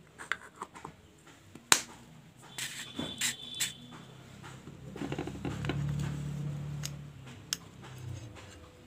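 Clicks and plastic handling noises as an LED bulb's frosted diffuser dome is pressed onto its housing and the bulb is fitted into a test lamp holder, with one sharp click about two seconds in. A low hum swells and fades over the second half.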